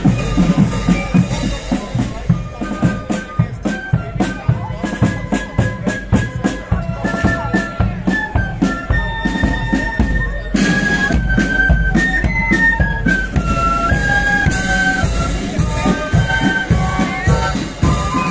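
A marching flute band playing a tune: many flutes carry the melody together over a steady march beat on bass and side drums.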